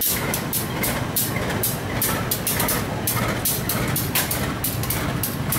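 A Kereta Api Indonesia CC 201 diesel-electric locomotive running close by as its train moves along the track. A steady low engine rumble sits under an uneven, rapid clatter.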